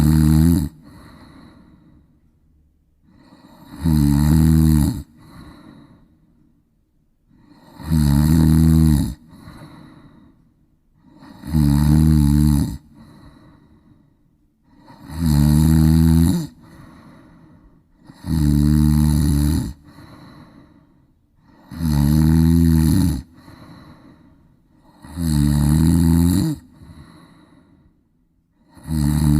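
A person snoring loudly and evenly, about nine deep snores about every three and a half seconds, each drawn in for about a second and a half with a wavering pitch and followed by a softer breath out.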